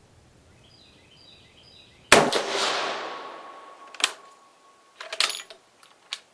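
An 8mm-converted Carcano M38 bolt-action rifle fires one shot of a cast-bullet load about two seconds in, the report echoing and dying away over about a second and a half. A sharp click follows, then a quick cluster of metallic clicks and one more click near the end, as the bolt is worked.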